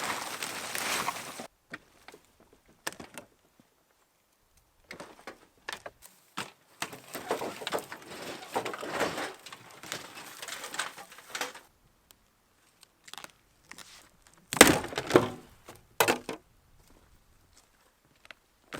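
Camper demolition: scraping and rustling as wood and tangled electrical wiring are pulled apart, with small clicks. About three-quarters of the way through come a few loud cracks and thuds.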